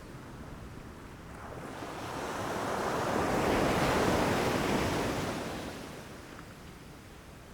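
Sea waves washing onto a shore: one wave swells to its loudest about four seconds in and then recedes.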